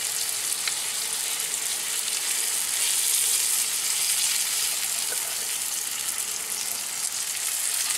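Fluke (summer flounder) fillets sizzling in butter in a cast-iron skillet, a steady hiss, with a couple of faint clicks as the fillets are handled and one is lifted.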